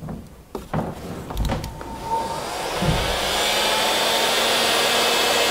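A few knocks and clicks, then an electric heat gun is switched on about two seconds in, comes up to speed and runs with a steady blowing hiss. It is shrinking a solder-seal heat-shrink butt connector and melting its low-temperature solder.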